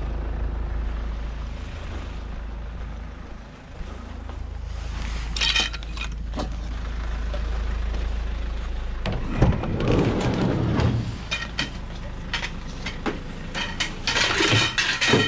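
Scrap items being handled and loaded into the back of a van, with a few sharp clicks, then a cluster of clunks and rattles about two-thirds in, and more rattling near the end. A steady low rumble runs under the first part.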